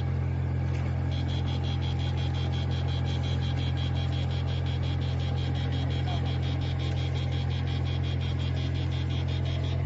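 Boat engine running with a steady low drone. From about a second in, a rapid, even high-pitched ticking joins it, about six ticks a second.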